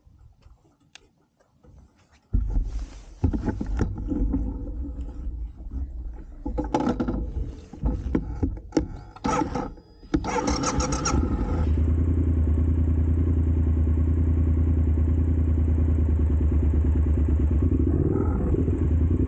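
Motorcycle engine starting about two seconds in and running unevenly, with scattered knocks and rustles. From about twelve seconds in it settles into a steady run as the bike is ridden.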